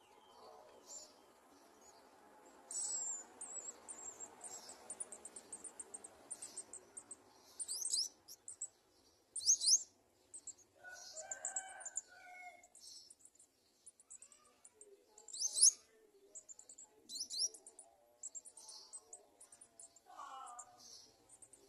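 Garden sunbirds chirping in quick runs of high, thin notes, broken by a few sharp sweeping calls. A rooster crows faintly in the background, once near the middle and again near the end.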